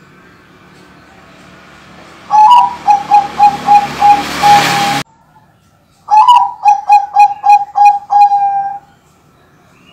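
Bangkok-line zebra dove (perkutut) cooing in two phrases of rapid, even, staccato coos. Each phrase opens on a higher note and is followed by about seven notes at one pitch. A hiss builds under the first phrase and cuts off suddenly as it ends.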